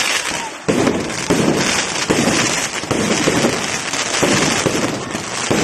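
Aerial fireworks going off in rapid succession near the finale: a sharp burst about every second, each followed by dense crackling. The shells fire one after another with no gaps between them.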